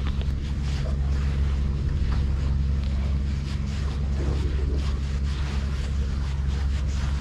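Steady low drone under a rushing hiss of wind and waves, with wind buffeting the microphone.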